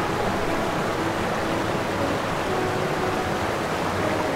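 Steady rushing water noise, even and unbroken, with faint sustained music notes held over it.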